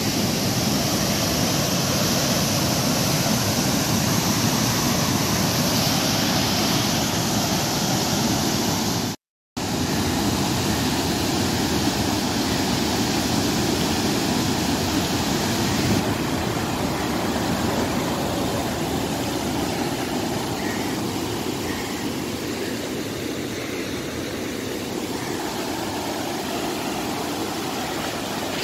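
Turbulent water surging out through the arches of a brick barrage, a steady rush of churning whitewater. It drops out to silence for a moment about nine seconds in, then resumes.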